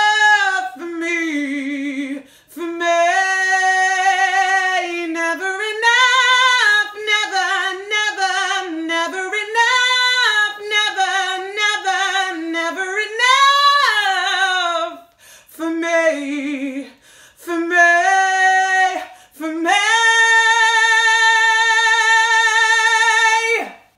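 A woman singing unaccompanied: phrases of runs sliding up and down, broken by short breaths, ending on a long steady held note of about four seconds that cuts off just before the end.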